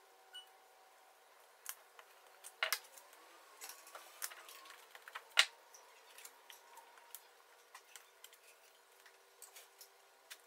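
Light, irregular clicks and taps of small sawn-veneer pieces and a hand tool being picked up and set down on the assembly board, with two sharper clicks, one a little after two and a half seconds in and one about five seconds in.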